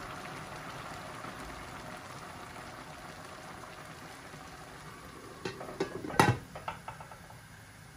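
A pot of nearly cooked rice bubbling and hissing steadily on a gas stove. About five and a half seconds in come a couple of light clinks, then a louder metallic clank as the stainless steel lid is set back onto the pot.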